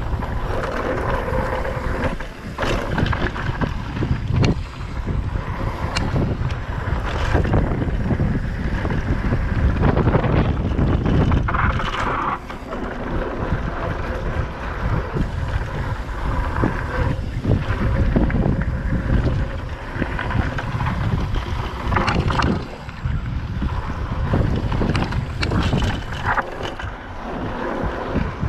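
Mountain bike descending a dry, rocky dirt trail at speed: heavy wind buffeting on the microphone over the rumble of tyres on dirt and loose rock. Frequent short knocks and rattles come from the bike as it goes over bumps.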